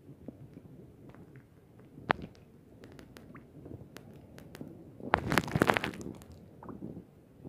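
Scattered sharp clicks and crackling picked up underwater. A dense, louder burst of crackling comes about five seconds in and lasts about a second.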